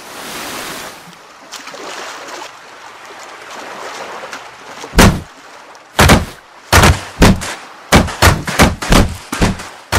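Soft wash of sea waves, then from about five seconds in a wooden crate knocking hard and repeatedly against sand as it jolts about, the knocks coming faster, from about one a second to about three a second.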